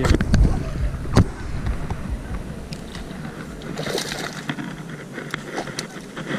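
A small bass flopping and splashing in the shallows at the bank, the biggest splash about four seconds in. A few sharp knocks near the start.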